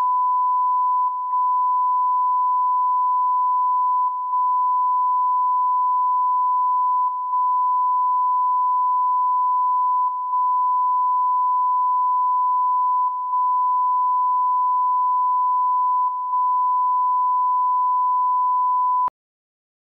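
Steady broadcast line-up test tone, one pure high-pitched note held unchanged, with a brief dip about every three seconds like the EBU stereo identification interruption. It cuts off suddenly about a second before the end.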